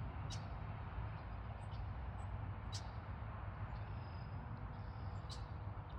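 Outdoor trail ambience: a steady low rumbling background noise, with three short, sharp high ticks spread across it.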